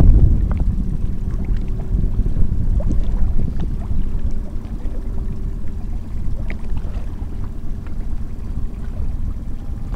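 Wind rumbling on the microphone and water sloshing around a small boat at sea, with a faint steady hum underneath.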